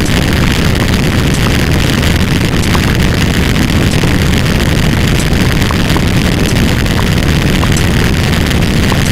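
Loud, unbroken wall of many layered sound effects blended into one dense noise with a deep rumble, no single sound standing out.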